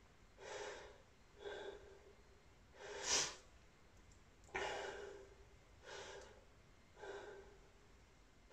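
A man breathing hard, faint, in six breaths about a second apart with a sharper one about three seconds in: catching his breath after a strenuous exercise set.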